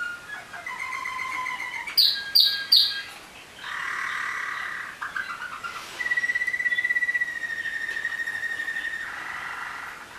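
Waterslager (Malinois) song canaries singing a run of varied trills and rolls. About two seconds in come three loud sharp notes, and from about six to nine seconds a long, even trill.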